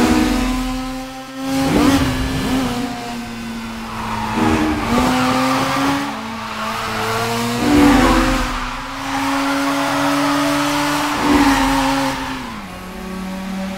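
Mazda RX-7 FD's engine revving hard with its pitch stepping up and down through gear changes and throttle lifts, while the tyres squeal through several drifts, about four long squeals in all.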